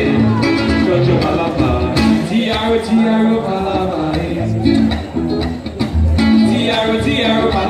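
Acoustic guitar played live through a sound system, with a voice singing over it in two places.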